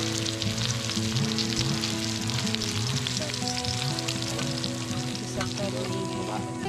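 Food sizzling and crackling as it fries in a pan on a portable gas stove. The sizzle is strongest in the first half and eases a little toward the end.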